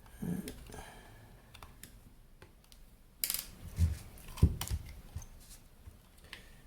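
Scattered clicks and knocks of an electronic unit's parts and tools being handled during disassembly, with a short rustling burst about three seconds in and two louder thumps soon after.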